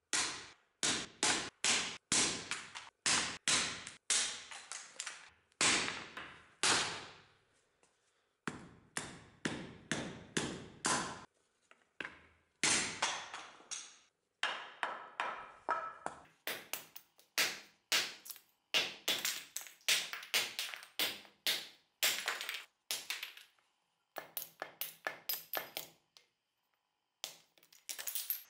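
Restored vintage meat axe chopping a thin wooden stick against a wooden stump block: a long series of quick, sharp chops, about two a second, with short pauses between runs, ending a little before the end.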